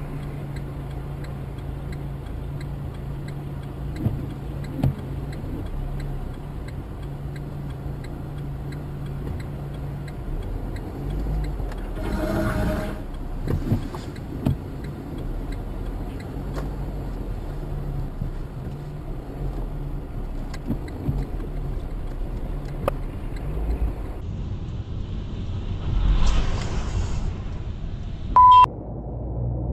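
Car engine and road noise heard from inside the cabin through a dashcam: a steady low hum with scattered clicks. A harsh noisy burst about twelve seconds in lasts about a second. A short, loud beep comes just before the end.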